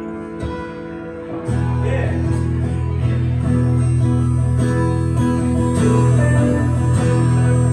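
Live acoustic guitar playing an instrumental passage of a rock ballad, thin at first and then filling out with a strong low end about a second and a half in, with a single sung "yeah" from the singer.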